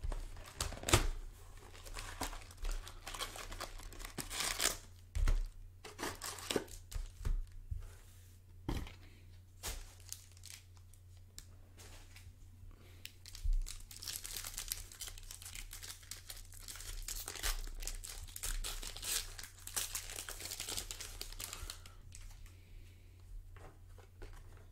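A 2017-18 Panini Prizm Fast Break box and a card pack's wrapper being torn open by hand: a run of tearing and crinkling of cardboard and plastic. There is a sharp snap about a second in, and the crinkling is densest in the middle.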